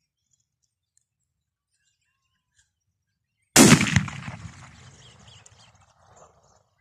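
A single .30-06 hunting rifle shot about three and a half seconds in: one loud, sharp report that dies away over about a second and a half.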